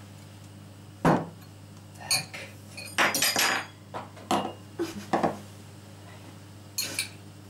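A string of knocks and clinks of glass and cutlery on a kitchen countertop: a bottle is set down, and a glass bowl with a fork in it and a stemmed shot glass are picked up and handled. The rattle is busiest about three seconds in, with a last clink near the end.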